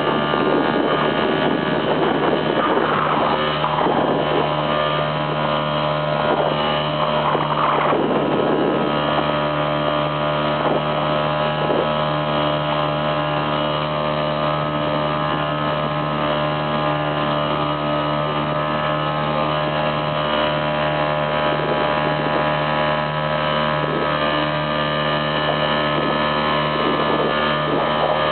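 A boat's small engine running steadily at constant speed, with a few short swishes near the start.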